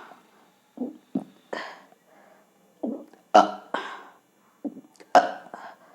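A woman belching on purpose, one belch after another. There are three louder belches about two seconds apart, with shorter, smaller sounds between them.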